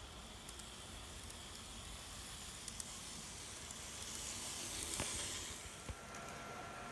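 N-gauge model electric train running past on its track: a faint, even whirring hiss that builds to its loudest about five seconds in and then fades, with a few sharp clicks as it goes.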